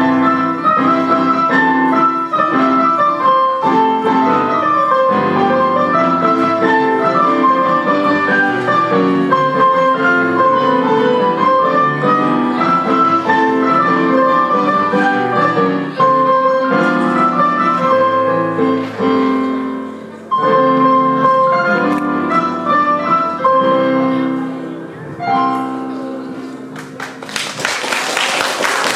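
Piano playing a lively piece of quick, many-note passages, which slows and fades on its last chord near the end. The audience then breaks into applause for the last two seconds.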